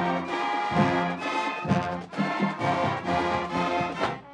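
Marching band brass playing a tune in full chords, the notes changing about every half second to a second.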